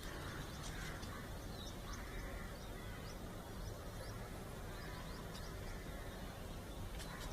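Birds calling again and again over a steady low background rumble.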